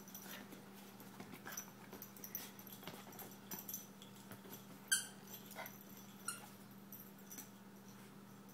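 Two small dogs play-wrestling: faint scuffling and paw clicks on a leather couch, with a sharp, high-pitched yip about five seconds in and a shorter one about a second later.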